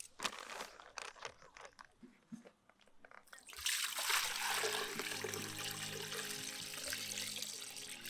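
A few clicks and rustles of things being handled, then water running steadily from about three and a half seconds in. Background music comes in under it about a second later.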